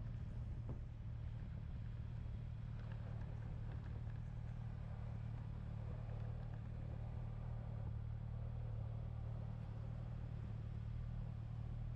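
Motorcycle engine running steadily while riding at cruising speed, a low, even drone.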